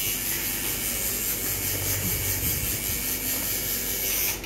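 Tattoo machine running with a steady hissing whir, which cuts off abruptly near the end.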